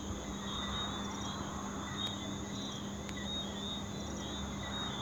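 Insects chirping in a steady, evenly pulsing pattern over a low steady hum, with a couple of faint ticks.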